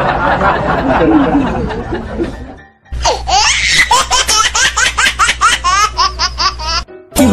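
Music fades out over the first couple of seconds, then a high-pitched laughing sound effect starts: a fast run of short rising "ha" pulses, about five a second, lasting about four seconds and cutting off suddenly.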